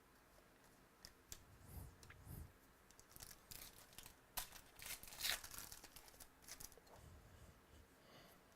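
Foil wrapper of a trading-card pack crinkling and tearing in a string of short, quiet rustles, loudest around the middle.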